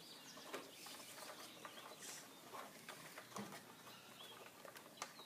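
Faint handling sounds, soft rubbing and a few small clicks, as a new rubber drive belt is worked around the brush-roll pulley of a Eureka Clean Living upright vacuum. One sharper click comes near the end.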